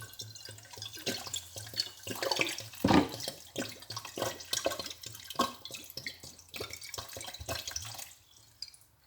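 About a litre of water being poured into a cooking pot of cut lemons and sugar, splashing and gurgling unevenly, with the loudest splash about three seconds in; the pouring stops about eight seconds in.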